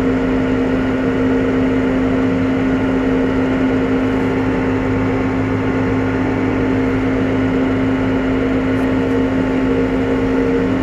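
New Holland T5 120 tractor's four-cylinder diesel engine running steadily at a constant speed held by the engine-speed cruise, pulling a lowered three-furrow plough through the soil.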